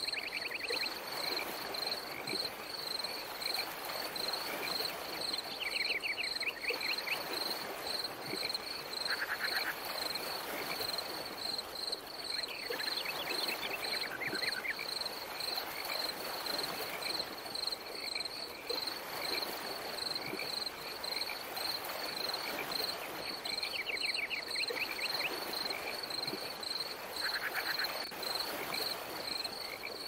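Night-time cricket chorus: a steady high chirping that pulses evenly, with short, higher trills from other insects breaking in every few seconds over a soft steady hiss.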